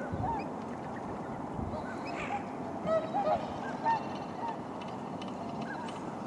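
A flock of swans calling: many short, overlapping calls from several birds, thickest about three to four seconds in.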